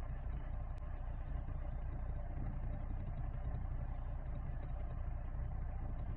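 Lada Niva Legend's 1.7-litre four-cylinder petrol engine idling steadily while warming up, heard from inside the cabin.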